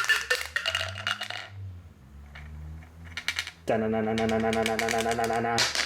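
Dice rattling and clattering as they are rolled, about a second and a half of dense clicks, a few more clicks about three seconds in, then a steady low pitched tone held for about two seconds near the end.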